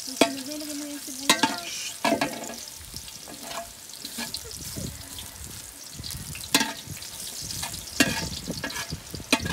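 Sliced garlic sizzling in oil in a large aluminium wok, stirred with a metal spatula that scrapes along the pan and strikes it with several sharp clanks.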